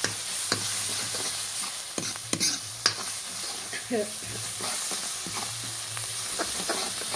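Onion-garlic masala sizzling steadily in hot oil in a metal kadhai, with a flat metal spatula scraping and tapping against the pan at irregular moments as it is stirred. This is the masala at the bhuna stage, just starting to fry.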